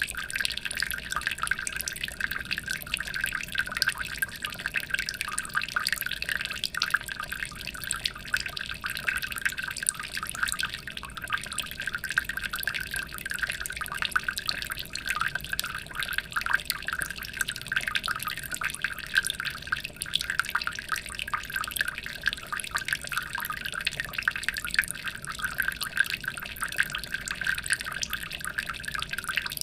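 Water in a fish aquarium trickling and splashing: a steady, dense patter of small drips and splashes.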